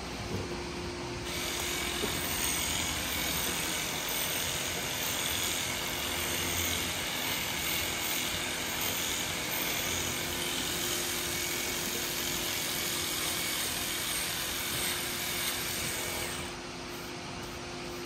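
Handheld electric livestock clippers running as they shave hair from a cow's hide, starting about a second in and stopping near the end, over a steady low hum.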